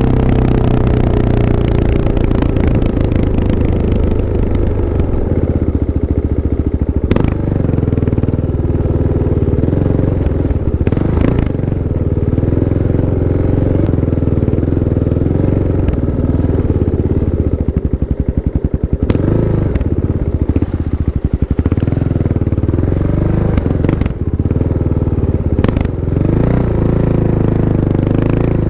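Kawasaki KLX 650's single-cylinder four-stroke engine running, its revs rising and falling gently, with a few sharp clicks or knocks along the way.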